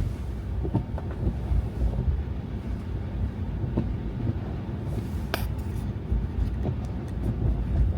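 Car driving on snow-covered roads: a steady low rumble of tyres and road noise, with scattered light knocks and one sharp click about five seconds in.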